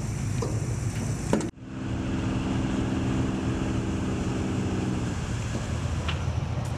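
Boat engine running steadily with a low rumble, joined by a steady pitched hum that stops about five seconds in. Near the start a couple of light metallic clicks, and the sound cuts abruptly about a second and a half in.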